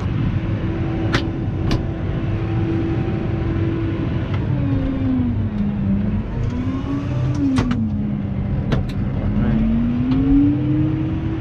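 New Holland T6.180 tractor's diesel engine heard from inside the cab, running at steady revs, then dropping and picking up twice. A few sharp clicks sound over it.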